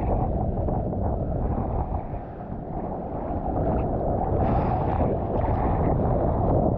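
Strong wind buffeting the microphone: a steady, heavy rumble of noise with a brief brighter rush about two-thirds of the way through.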